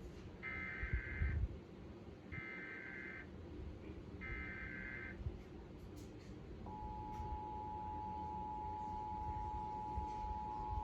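Emergency Alert System Required Monthly Test tones: three short bursts of warbling SAME header data, each about a second long with a second's gap between them, then the steady two-tone EAS attention signal, which starts about two-thirds of the way in. The attention signal marks an alert about to be read.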